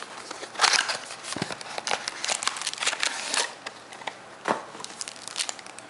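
Crinkling and rustling of trading-card packaging as the second mini box of Topps Finest packs is handled and opened, with a few short knocks.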